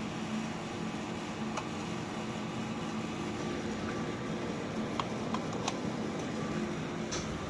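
Steady hum of laboratory equipment with a few light clicks of plastic petri dishes being handled, several of them a little past the middle.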